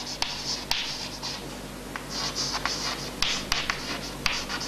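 White chalk scratching on a chalkboard as a word is written out, in short strokes broken by a few sharp ticks where the chalk strikes the board.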